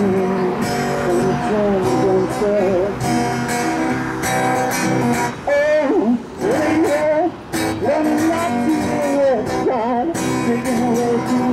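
Acoustic guitar music: a strummed guitar under a melody line that slides and bends in pitch.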